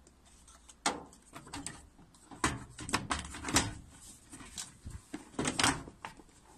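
Scattered clicks and knocks of hands working inside a front-loading washing machine, refitting a loose wiring connector and parts.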